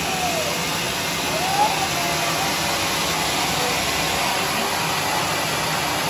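Homemade circular-saw sawmill running, a steady mechanical noise.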